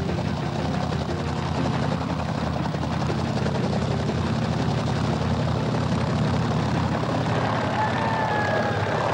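Helicopter flying overhead, its rotor beating steadily with a low, even chop.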